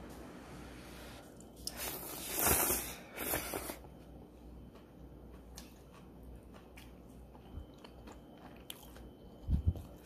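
Eating ramen close to the microphone: a loud, noisy slurp of noodles about two seconds in, then chewing with small clicks, and a low bump near the end.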